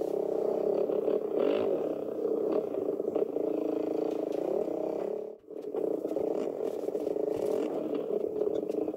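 450cc four-stroke motocross bike engine running under the rider, its pitch rising and falling with the throttle. The sound drops out briefly about five seconds in, then the engine picks up again.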